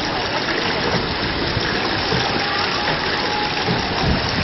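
Steady rush of water as muddy groundwater wells up over the pavement from liquefied ground.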